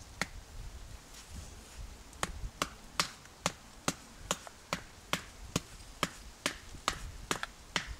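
Knife being batoned down into an upright stick to split it: sharp wooden knocks at about two a second, starting about two seconds in, with fainter taps before.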